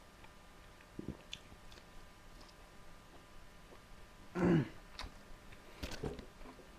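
Close-up eating sounds: soft chewing and scattered mouth and utensil clicks, with a short throat-clearing grunt about four and a half seconds in, the loudest sound.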